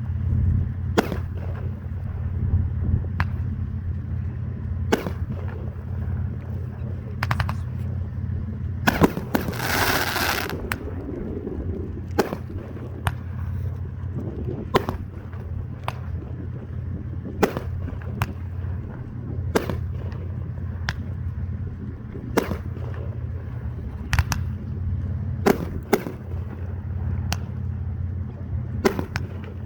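Fireworks going off: a series of sharp bangs about every one to two seconds, with a longer hissing burst about a third of the way through, over a steady low rumble.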